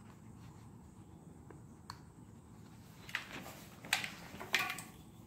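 Handling noises close by: a faint click about two seconds in, then three short bursts of rustling and knocking between about three and five seconds in.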